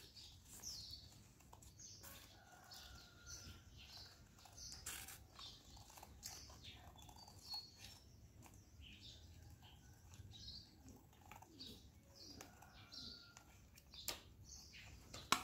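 Faint snips of scissors cutting thin colored paper around a cardboard circle, a few sharp clicks among them, with small birds chirping faintly in the background.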